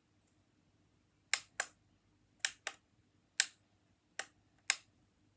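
Buttons on a digital alarm clock pressed one after another while its settings are entered: seven short, sharp clicks, some in quick pairs.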